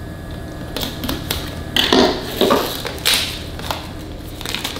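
Serrated knife cutting the plastic film on a small cardboard product box, heard as irregular scratching and crinkling strokes starting about a second in.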